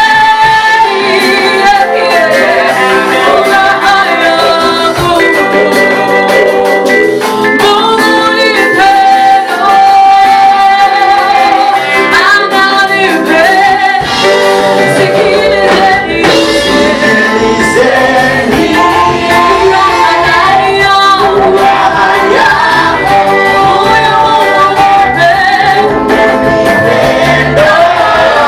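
A praise team singing a gospel song together, with female voices prominent, over instrumental accompaniment.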